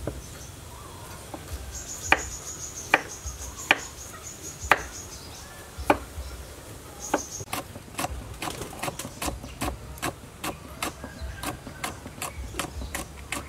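Knife chopping vegetables on a wooden cutting board: a few separate knocks in the first six seconds, then a quicker, even run of chops, about three a second, through the second half. A high insect chirring runs between about two and five seconds in, and again briefly near seven seconds.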